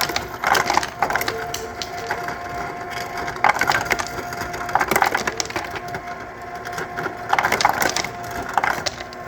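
Ice cubes clattering and cracking in irregular bursts every second or two, over a steady faint hum.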